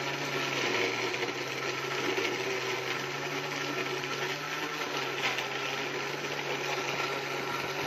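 Electric kitchen blender running continuously, blending a drink with ice cubes. The motor hum is steady, its pitch dropping a little about halfway through.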